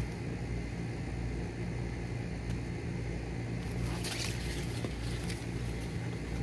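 A brief rushing rustle about four seconds in as a thrown tree weight and its throw line fly up through the branches, over a steady low hum.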